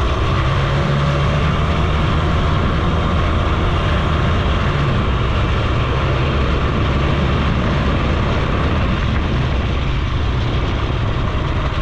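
Suzuki FZ 50 moped's small two-stroke single-cylinder engine running at a steady cruise while the bike rolls along a dirt track, together with a steady rush of wind and road noise.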